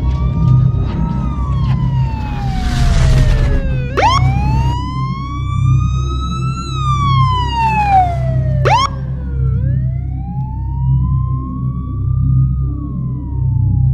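A police siren wailing in slow sweeps, its pitch rising and falling over a few seconds each time, over a steady low rumble. Two quick upward whoops cut in, about four and nine seconds in.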